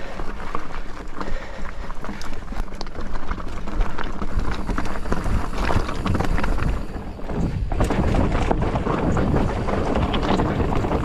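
Polygon Siskiu T8 mountain bike rolling over a rocky dirt trail: tyres crunching on stones and gravel, the bike rattling over bumps, with wind buffeting the microphone. It goes briefly quieter about seven and a half seconds in.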